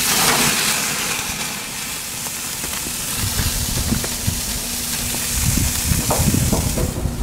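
Beef burger patties sizzling on a gas grill's grates: a steady hiss that fades near the end, with low rumbling and a few knocks in the second half.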